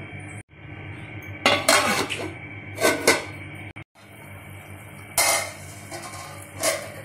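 A metal pot lid clattering and scraping against the rim of a metal cooking pot in four short bursts as it is handled.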